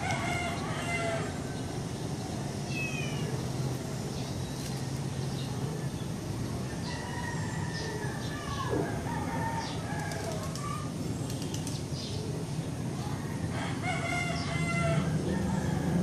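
Roosters crowing several times, with a crow at the start and another near the end, and a few short bird chirps. A steady low hum runs underneath and grows a little louder near the end.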